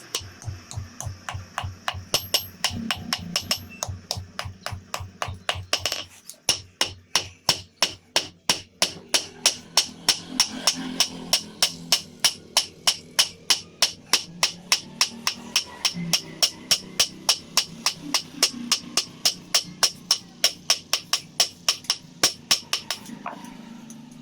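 Blacksmith's hammer striking hot iron on an anvil in a steady rhythm, about three blows a second, as a piece of railroad-track iron is forged into a knife blade. The hammering breaks off briefly about six seconds in and stops near the end.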